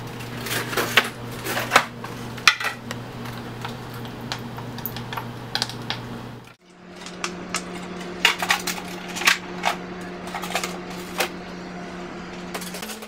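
Irregular light plastic clicks and clinks of cryovials and their cardboard freezer box being handled, over a steady low hum. The hum cuts out about halfway and returns at a different pitch, with more scattered clicks and knocks after it.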